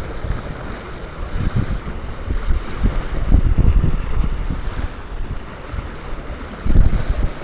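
Strong wind buffeting the microphone in uneven gusts, with a surge near the end, over a steady hiss of water rushing past a sailing yacht's hull in winds over 22 knots.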